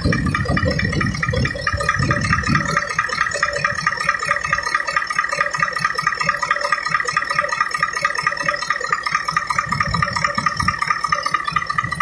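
Freshly overhauled Mitsubishi Fuso 8DC9 V8 twin-turbo diesel engine running at a steady idle: a fast, even clatter with a steady high whine over it, and a heavier rumble in the first two seconds and again briefly near the end.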